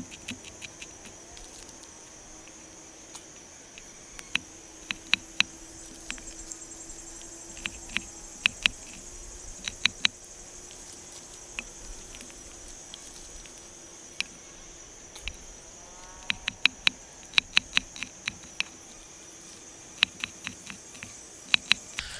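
Knife chopping shallots on a wooden log: sharp taps in quick runs of several, with pauses between. A steady high buzz of insects runs underneath.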